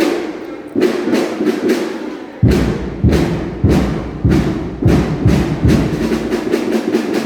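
Drumming with a steady beat of sharp strikes, about three a second. A deep bass-drum thud joins the beat about two and a half seconds in.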